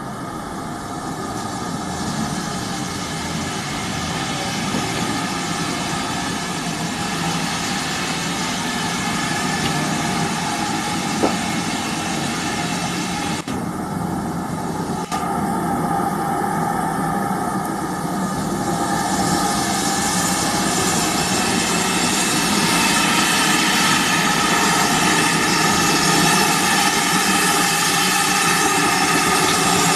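Steam hissing steadily from GWR 5101-class 'Large Prairie' 2-6-2 tank locomotive No. 5199 as it stands at rest. The hiss grows steadily louder.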